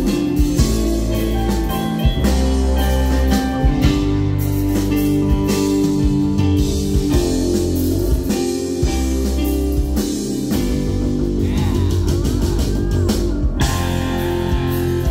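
Live rock band music with keyboard, held bass notes, guitar and drums. About eleven to thirteen seconds in, a high line bends and wavers in pitch.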